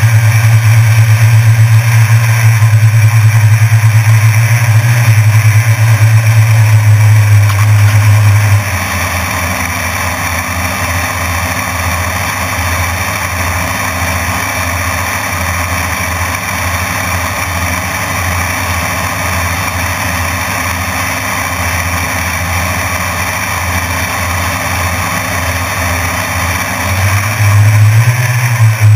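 Drone motors and propellers humming loudly, heard from the camera on the drone. The drone is throttled down about nine seconds in, leaving a lower, choppier hum, then spins up again near the end.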